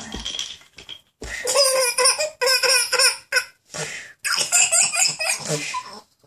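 A toddler laughing in two long bouts of quick, high-pitched belly laughs. The first starts about a second in, and the second follows after a short pause.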